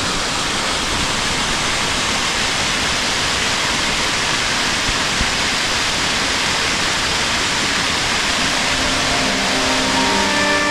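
Rain-swollen creek rushing steadily over a concrete crossing, a loud, even hiss of water. Music comes in softly near the end.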